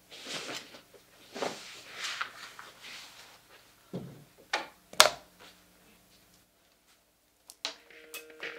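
Clothes rustling as someone pulls on shorts, then a few knocks, the loudest a sharp bang about five seconds in, of a door or drawer shutting; a couple of light clicks near the end.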